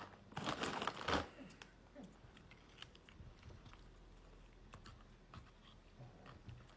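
Close-up eating sounds: a burst of crunching in the first second, then faint chewing with small scattered clicks.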